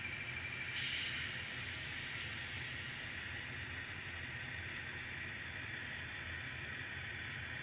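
N scale model train running slowly on the layout: a steady whir and hiss over a low hum, briefly a little louder about a second in.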